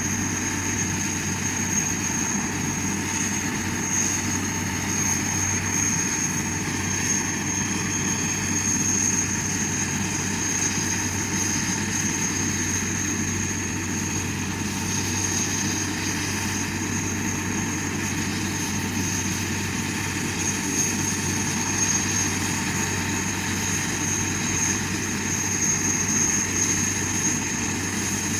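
A helicopter running steadily: a constant engine drone with a steady high-pitched whine over it.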